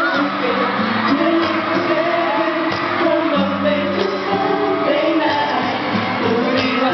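Live K-pop boy-band performance in a large arena: a male voice singing into a microphone over a loud pop backing track, with fans whooping and shouting.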